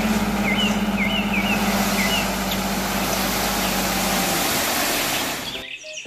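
A dump truck's engine running steadily as its hydraulic hoist tips the loaded bed, with a broad hiss of soil sliding out of the tipper. The engine's steady hum stops about four seconds in, and the hiss fades soon after. A few bird chirps sound early on.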